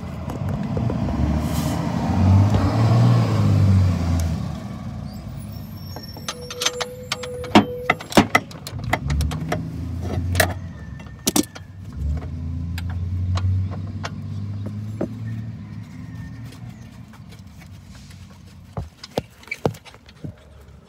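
Motor vehicles drive past twice with a low rumble, about a second in and again around twelve seconds in. In between comes a run of sharp metallic clinks and clacks from handling tools and brake parts, and a few more clicks come near the end.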